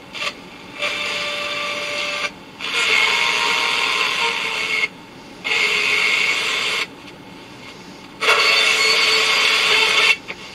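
Small FM radio receiver's speaker hissing with static as it is tuned up through the band below 88 MHz, the hiss coming in four stretches of a second and a half to two and a half seconds that start and stop abruptly with short quieter gaps between.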